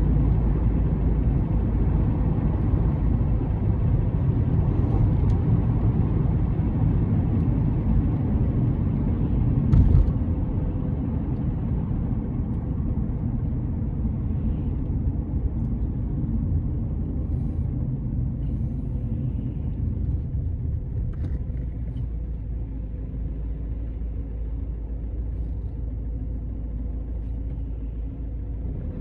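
Car driving, with a steady low rumble of engine and tyre noise. A single sharp bump about ten seconds in, after which the rumble slowly grows quieter.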